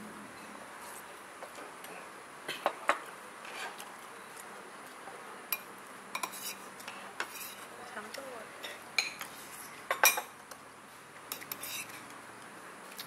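Cutlery clinking and scraping against plates and bowls during a meal, in irregular clicks and taps. The sharpest clinks come about three seconds in and again about ten seconds in.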